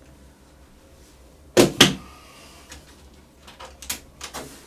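Hard plastic knocks and clicks from a laser printer's drum unit and toner cartridge as it is lifted out of the printer and put down. There are two sharp knocks close together a little over a second and a half in, then a few lighter clicks.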